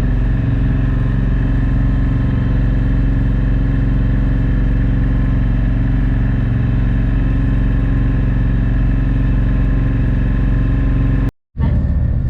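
Passenger ferry's engine running steadily, a loud, even low drone. About a second before the end it breaks off abruptly and comes back as a rougher, less even rumble.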